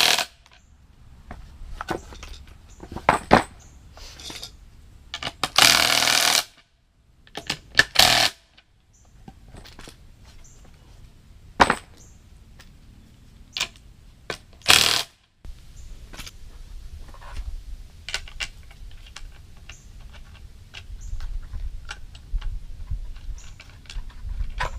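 A power tool run in several short, loud bursts, with small metal clinks and knocks between them, as nuts are tightened down onto threaded rod.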